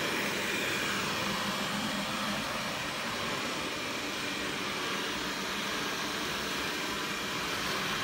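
First-generation Xiaomi Mi robot vacuum cleaner running up close on a wooden floor: the steady hiss of its suction fan with a faint low hum, even in level throughout.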